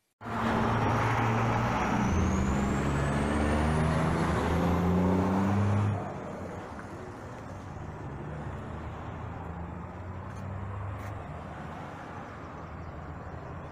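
A loud motor-vehicle engine running, its pitch stepping up and down, with a thin whine rising in pitch; about six seconds in it cuts off sharply to quieter, steady street traffic noise.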